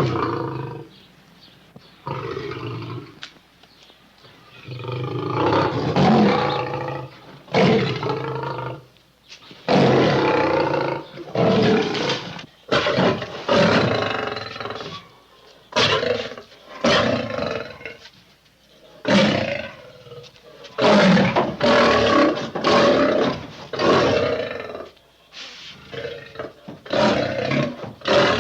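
Cougar and bear sound effects: a string of loud roars and snarls, each lasting about a second or two, with short pauses between them.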